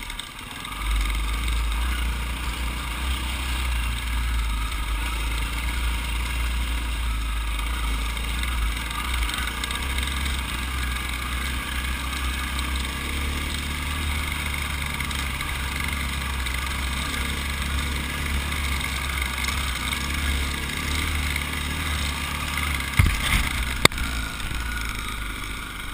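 Dirt bike engine running steadily at cruising speed, with wind rumble on the microphone; the sound dips briefly right at the start and picks up again about a second in. A couple of sharp knocks come near the end.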